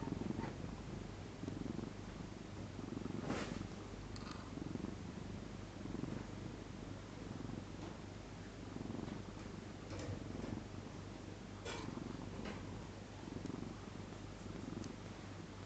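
A sleeping cat snoring, a low rasping breath swelling and fading about every one and a half seconds, with a few short clicks.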